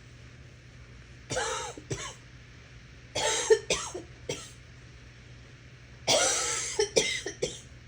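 A person coughing raspily in three short bouts, the first of two coughs, the second of three, the third of four, a couple of seconds apart.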